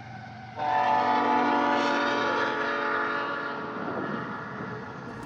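A locomotive air horn sounding one long, loud chord-like blast about half a second in. It fades and bends in pitch toward the end, as a passing horn does.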